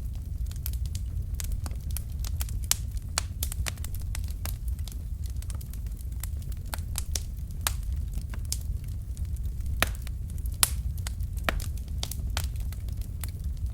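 Wood fire in a fireplace crackling: irregular sharp pops and snaps from the burning logs, a few louder ones, over a steady low rumble of the flames.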